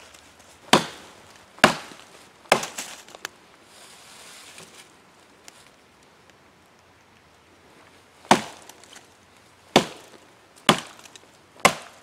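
A blade chopping into oak: three sharp chops about a second apart, a pause of about five seconds, then four more chops at the same pace.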